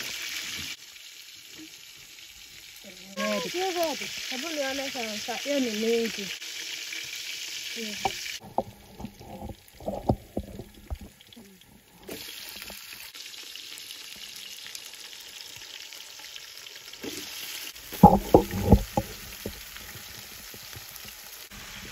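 Vegetables frying in an aluminium pot over a wood fire, a steady sizzling hiss that comes and goes. It is broken by clattering knocks as peeled green cooking bananas (matoke) go into the pot, with a few loud knocks on the pot near the end.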